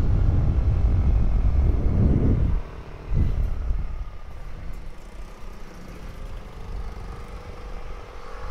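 Motorcycle being ridden on the road: loud, low engine and wind noise that drops off suddenly about two and a half seconds in, surges briefly about three seconds in, then settles into a quieter steady engine drone.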